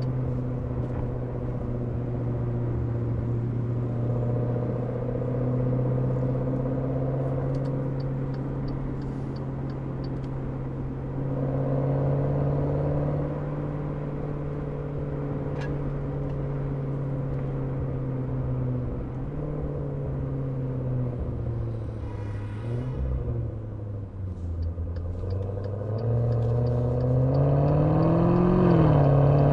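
Maserati Levante Trofeo's twin-turbo V8 exhaust, picked up close by an exhaust microphone, droning at a steady pitch while cruising. Past the middle the pitch drops as the car slows. Near the end the revs climb, rising and falling through gear changes under acceleration.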